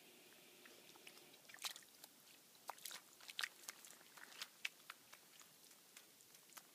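Scattered crisp crackles and snaps, several a second, as a dog pushes through stiff reed stems and mud at a pond's edge. They begin about a second and a half in and die away near the end.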